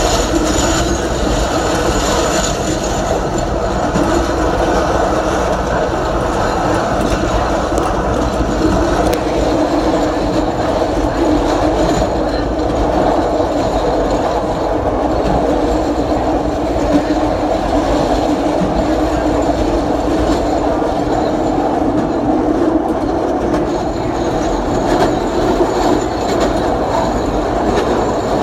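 Chicago 'L' Green Line train running at speed on elevated track: a steady rumble of wheels on the rails, with a faint high whine in the first few seconds and again near the end.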